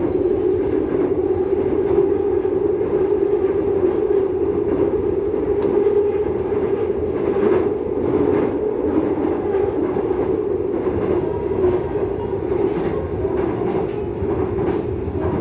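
Seoul Subway Line 2 4th-batch train running along the track between stations: a steady rumble of wheels and running gear, with scattered short clicks from the rails.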